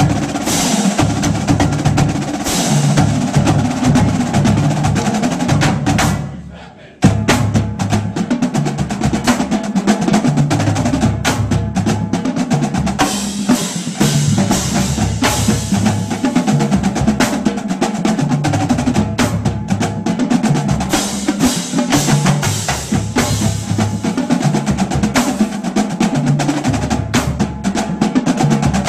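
Marching drumline of snare drums, tenor drums and pitched bass drums playing a fast, dense cadence. About six seconds in the playing dies away briefly, then the line comes back in together with a loud hit and carries on.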